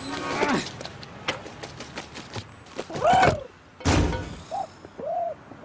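Cartoon sound effects: short vocal exclamations and scattered light clicks, then one heavy thud about four seconds in, followed by a few short rising-and-falling vocal sounds.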